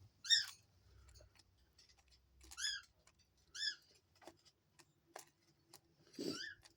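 A bird gives three short, high chirps, about a second apart in the first four seconds. Light clicks and taps fall between them, and there is a short rustle near the end.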